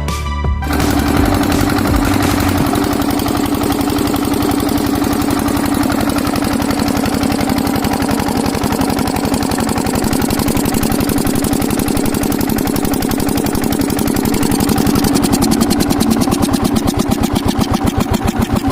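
Diesel engine running after repair of its valves and cylinder head, firing steadily with a fast, even knock. About 15 s in its beat slows and each firing stroke is heard separately.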